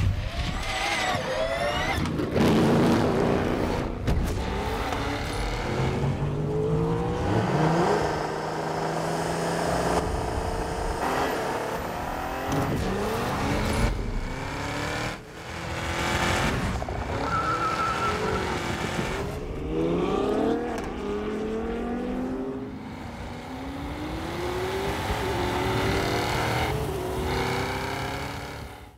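A montage of Cadillac V-Series cars, a prototype race car and a sports sedan, at full throttle. Their engines rev up hard and drop in pitch at each upshift, again and again, with a brief lull about halfway through before the engine sound climbs again.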